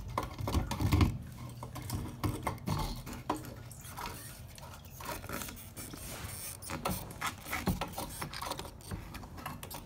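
In-tank fuel pump assembly being worked up out of the fuel tank opening: repeated scraping, rubbing and small knocks of the plastic housing against the tank's metal mounting ring. The loudest knock comes about a second in.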